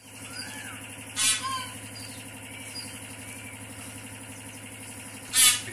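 Two short, loud, harsh bird calls about four seconds apart, over a steady low hum, with small birds chirping faintly.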